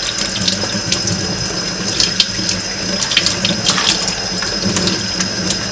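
Kitchen tap running steadily into a stainless steel sink, the stream splashing over hands rinsing squid tentacles, with a few short ticks.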